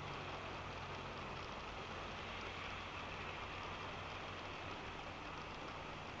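Rain pattering on a car's roof and windscreen, heard from inside the cabin while driving, as a steady hiss with faint drop ticks over a low, even engine and road hum.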